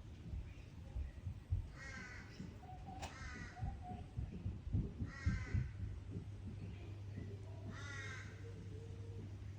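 A crow calling: four harsh caws of about half a second each, spaced one to three seconds apart, over a low rumble of wind.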